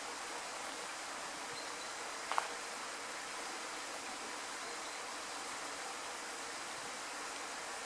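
Steady outdoor background hiss, with one short, sharp sound a little over two seconds in.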